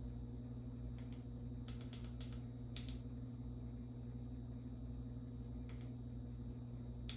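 A steady low hum with a few light, scattered clicks, like small objects being handled.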